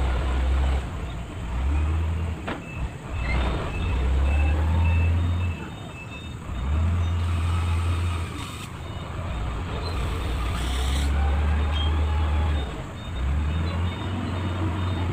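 Motor grader's diesel engine working as it moves over a mound of dirt, with a reversing alarm beeping in short runs. A heavy low rumble comes and goes every second or two.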